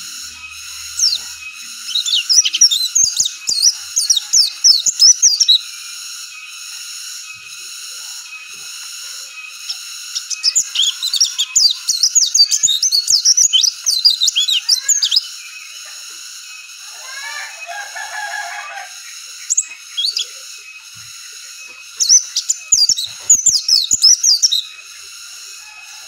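White-eye (pleci) singing: three long runs of rapid, high twittering chirps, with a softer, lower warble between the second and third. A steady high background drone runs under it.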